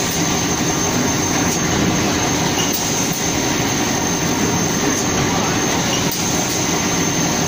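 Roller-fed plywood processing machine running steadily as a plywood sheet feeds out through it: a constant dense mechanical noise with a thin, steady high whine.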